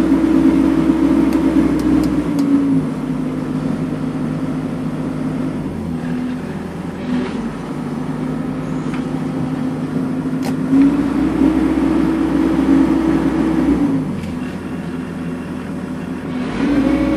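Cat 312BL excavator's diesel engine running in the cab while the joystick is worked, the engine note stepping up and down in turns: higher at the start, dropping a few seconds in, rising again just past halfway, dropping a few seconds later, and rising again near the end.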